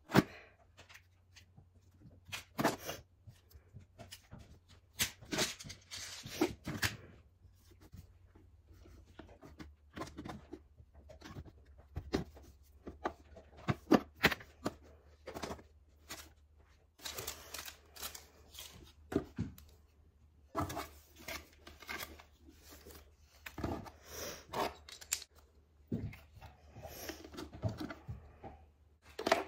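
Small items being lifted out of a wooden drawer and set down by hand: irregular clacks and knocks of plastic bottles and cases against wood, with short stretches of rustling.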